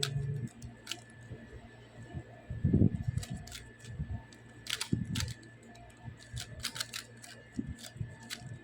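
Plastic Rubik's cube layers being turned by hand: irregular clicks and clacks, with louder clusters of turns about three seconds and five seconds in.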